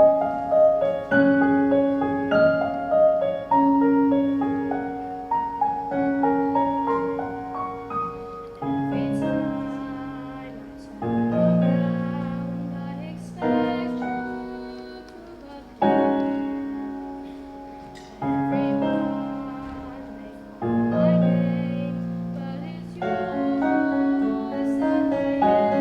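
Slow, gentle piano playing the introduction to the song. Quick runs of notes come first, then from about nine seconds in, full chords are struck about every two and a half seconds, each one left to ring and fade.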